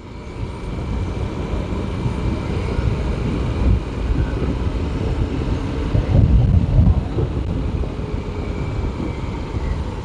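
Riding noise on a Honda CBF150 motorcycle: a steady, gusting rumble of wind and road on the microphone, with the single-cylinder engine running underneath. It builds up over the first second.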